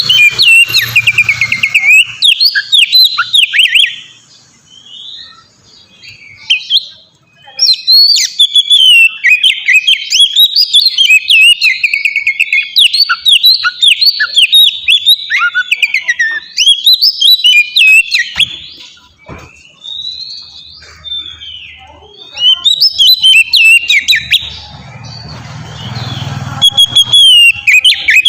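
Oriental magpie-robin (kacer) singing a loud, fast, varied song of sweeping whistled notes in long runs broken by short pauses.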